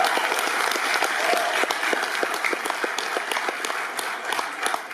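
Audience applauding: a dense patter of many hands clapping, easing off a little near the end.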